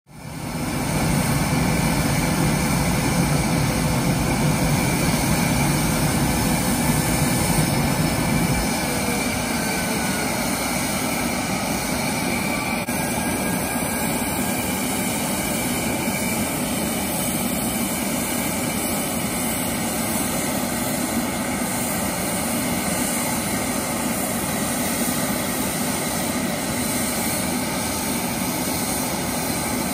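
Gripen C fighter's single Volvo RM12 jet engine: a loud rumble of the jet in flight for about the first nine seconds, then an abrupt change to a steady, even jet-engine sound as the parked Gripen runs at idle.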